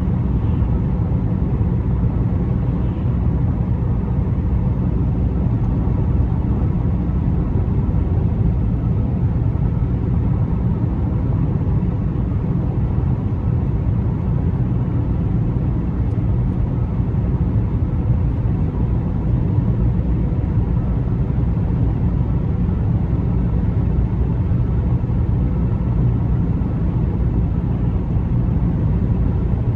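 A car driving at a steady pace: an even, low rumble of tyres on the road and the engine, holding the same level throughout with no distinct events.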